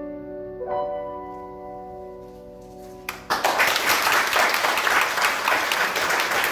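Piano accompaniment's closing chord of the song, struck about a second in and left to ring and fade, then audience applause breaking out suddenly about halfway through and continuing.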